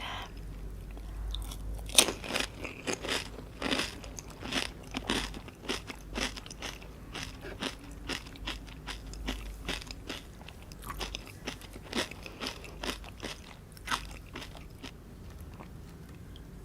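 Pani puri eaten close to the microphone: the crisp hollow puri shells crunching as they are bitten and chewed, in a quick run of crackling bites that starts about two seconds in and thins out near the end.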